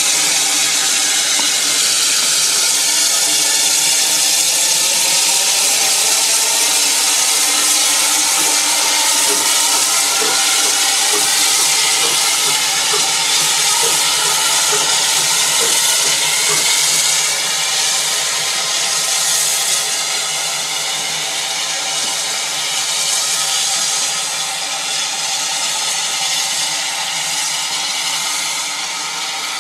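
Steam locomotive 'Spitfire', a small saddle-tank engine, letting off steam in a loud, steady hiss that eases slightly about two-thirds of the way through.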